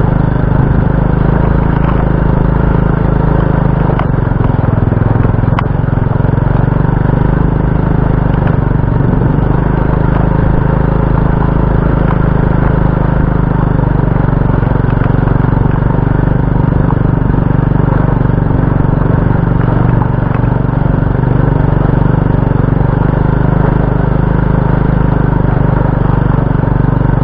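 Motor scooter's engine running steadily at slow riding speed, heard from the rider's seat over a dirt track, with a couple of light knocks a few seconds in.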